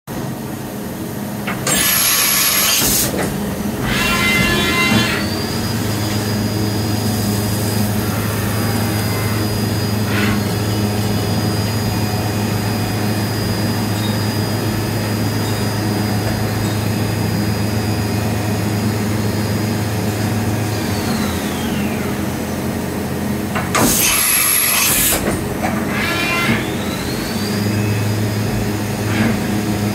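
Daewoo Mynx 500 vertical machining centre running under power. A high spindle whine rises a few seconds in, holds steady, winds down about two-thirds of the way through, then rises again near the end, over a steady low hum. There are two short, loud bursts of hiss, one about two seconds in and another about 24 seconds in.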